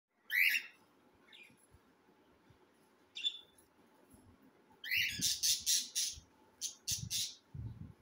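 Cockatiel chicks calling in short, harsh calls: single calls about half a second in, near one and a half and three seconds, then a quick run of calls from about five seconds and three more just before seven seconds.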